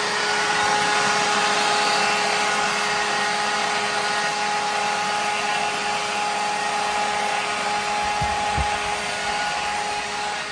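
Leaf blower running steadily with a constant whine over rushing air, blowing wet thinned paint out of a window screen's mesh so the holes don't clog. It begins to wind down at the very end.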